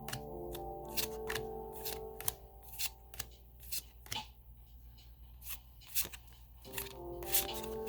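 Trading cards being flipped and slid through the hands one after another, making a string of sharp, irregular card snaps. Soft background music with held chords plays underneath.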